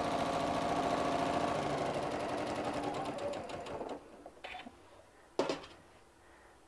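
Janome M7 Continental sewing machine with a walking foot stitching a seam, running steadily and then slowing and stopping about three to four seconds in. Two short clicks follow.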